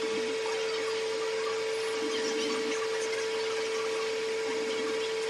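Hair dryer running steadily: a constant motor whine over the hiss of blowing air.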